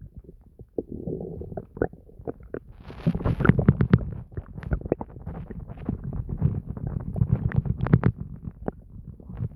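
Stomach gurgling and growling: a low rumble broken by rapid pops, busier and louder from about three seconds in.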